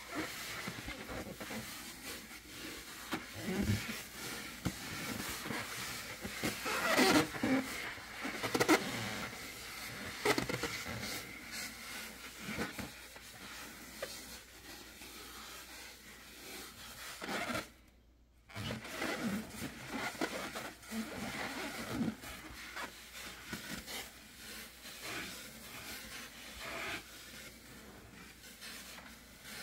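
Hands and long stiletto nails rubbing, squeezing and scratching the skin of a large inflated latex balloon: irregular squeaks and scrapes of latex, loudest about seven to nine seconds in. There is a brief break about two-thirds of the way through.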